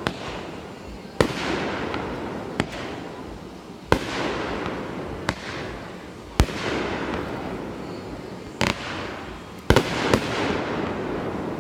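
Aerial fireworks going off: about nine sharp bangs, spaced roughly one to two seconds apart, each trailing off in a long fading tail, with two bangs close together near the end.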